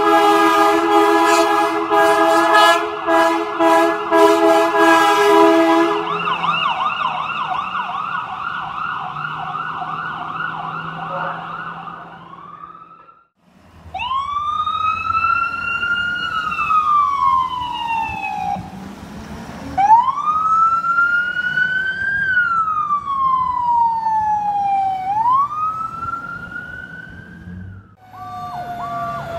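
Ambulance warning devices: for about six seconds an air horn sounds a chord in repeated blasts, then a fast yelp siren warbles. After a short break, an electronic wail siren rises and falls in slow sweeps as the ambulance pulls out of the station.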